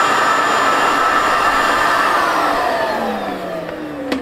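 12-gallon Shop-Vac wet/dry vacuum running with a steady whine, pulling through a cyclone separator. About halfway through the vacuum is switched off, and its whine falls in pitch as the motor winds down. A sharp click comes near the end.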